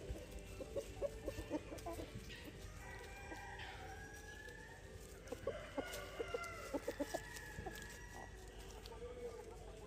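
Ayam Cemani chickens clucking in quick bursts, with a rooster crowing in the middle.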